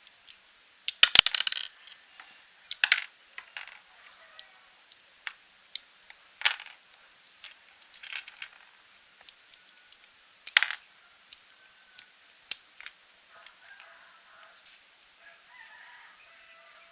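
LEGO bricks clicking and clattering against each other at irregular intervals, with the loudest rattle about a second in.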